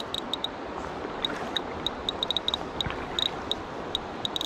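Fly reel clicking in short, irregular runs while a hooked trout is played, over a steady rush of river water.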